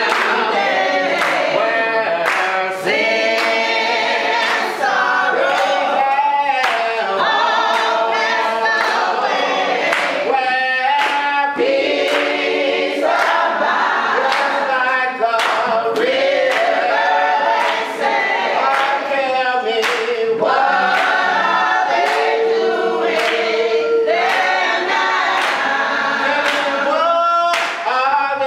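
A group of men and women singing a gospel song together, with hand claps on a steady beat.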